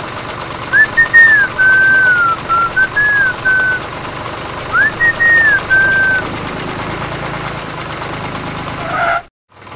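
A whistled tune in two short phrases of sliding notes, over the steady hum of the toy tractor's small motor; everything cuts off suddenly near the end.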